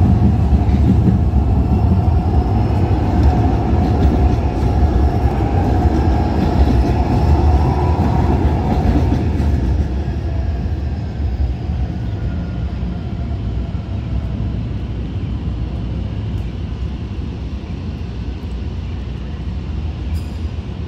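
Calgary CTrain light-rail train running past along the street: a loud low rumble with a steady tone above it, which drops away about ten seconds in, leaving quieter city street noise.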